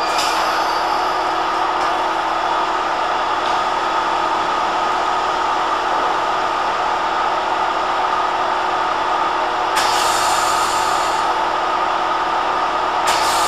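A London Underground D78 stock train standing at the platform with a steady drone from its equipment. Short bursts of air hiss come right at the start, again about ten seconds in, and near the end.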